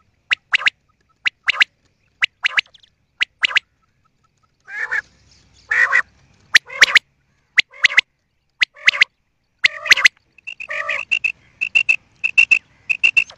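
Common quail calling: sharp short notes in quick pairs, about one pair a second, broken by a few longer, rougher, lower calls, then a quick run of short high notes near the end. A quail call recording of the kind played to lure quail for hunting.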